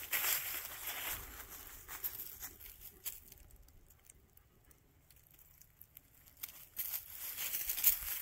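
Footsteps crunching and rustling through dry fallen leaves, stopping for a few seconds in the middle with only a few small crackles, then starting again near the end.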